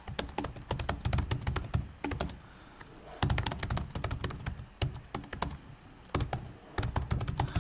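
Typing on a computer keyboard: rapid runs of key clicks, with a pause of about a second near the middle before the typing resumes.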